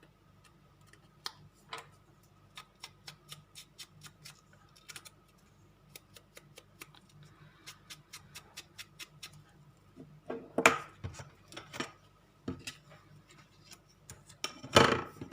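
Faint, irregular light clicks and taps of paper craft pieces being handled, several a second, with louder scuffing handling noises about ten seconds in and again near the end.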